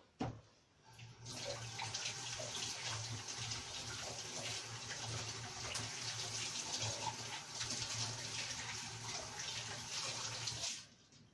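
Tap water running into a sink as dough-covered hands are washed under it. The water comes on about a second in, runs steadily, and is shut off near the end.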